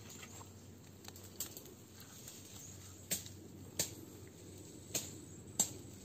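Scattered sharp clicks and taps, about six of them, the loudest in the second half, over a faint steady low hum.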